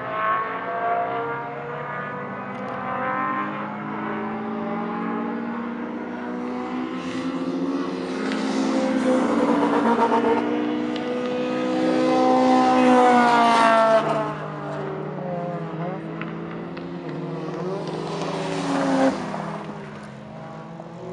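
Cars lapping a road-racing circuit, their engines revving up and down as they come past one after another. The loudest pass builds up and drops off sharply about two-thirds of the way through, and another car passes near the end.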